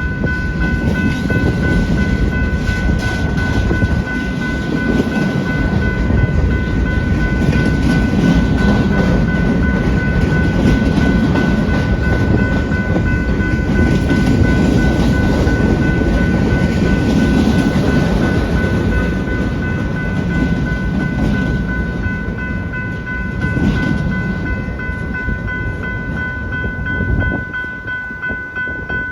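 A BNSF manifest freight train's cars rolling past with a steady rumble and clickety-clack of wheels over rail joints, mixed with wind noise, and a few steady high tones over it. The rumble thins out near the end.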